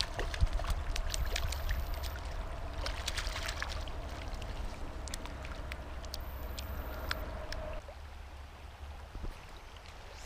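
River current flowing and splashing around a wading angler, with scattered sharp splashes through the first seven seconds or so as a brown trout thrashes into a landing net. It quietens after that. A steady low rumble runs underneath.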